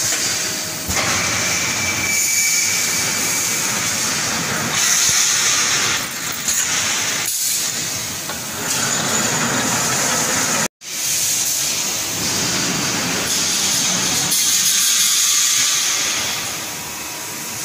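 Reinforcing wire mesh welding machine for 3–8 mm ribbed rebar running: a steady, loud hiss and machine noise that swells and eases unevenly, cutting out briefly just past the middle.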